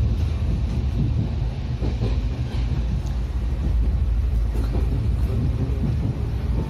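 Steady low rumble inside an Indian Railways berth coach on the move, with faint scattered clicks and rattles.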